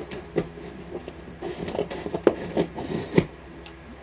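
Scissors slitting the packing tape on a cardboard shipping box: a run of scraping, crackling strokes with a few sharp clicks.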